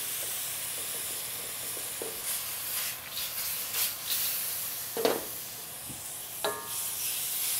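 Pork and broccoli sizzling hard in a wok as the splash of water and sauce just added cooks down and reduces. A wooden spoon stirs the food, with a few short scrapes and knocks against the wok.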